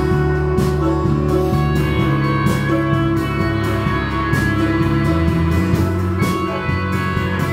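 Live rock band playing an instrumental passage: electric guitar holding sustained notes over a drum kit keeping a steady beat with regular cymbal and snare hits.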